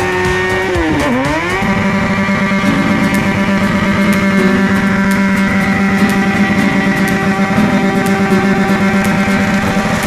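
Motorcycle engine held at high revs: the revs dip briefly about a second in, climb straight back, and then hold steady at a high pitch.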